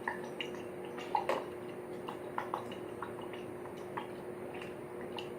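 A spoon clicking and tapping lightly against a bowl and sauce bottle while hot sauce is spooned out, in irregular small taps, over a steady faint hum.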